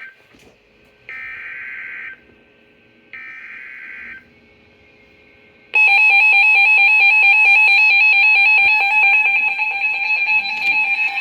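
Emergency Alert System SAME header data bursts: two harsh, buzzing one-second digital screeches a second apart. About six seconds in they give way to the loud, steady two-tone EAS attention signal that announces a new warning.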